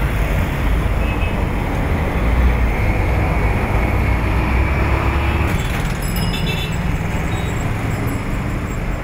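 Busy city road traffic: cars, motorcycles and a bus passing, with a steady low rumble of engines.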